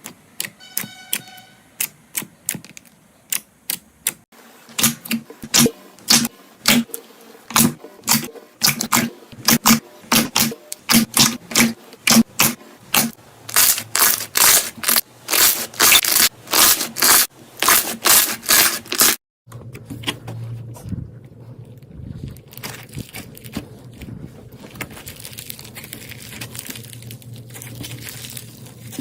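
Slime being pressed and handled, giving a run of sharp pops and crackles that quicken to several a second. About two-thirds of the way through it cuts to softer, denser crackling over a low hum.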